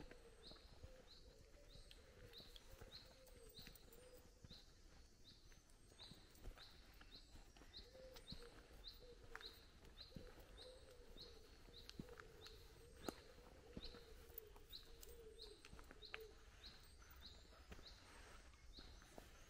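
Faint woodland birdsong: a small bird repeats a short, high, falling note about twice a second, over a low wavering cooing that stops a few seconds before the end.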